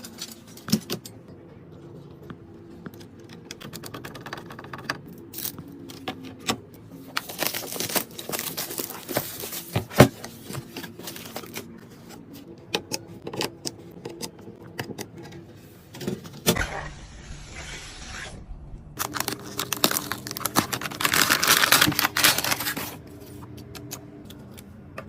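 Hands handling computer parts and packaging: many sharp clicks and taps, scraping, and two longer stretches of rustling or tearing, over a faint steady low hum.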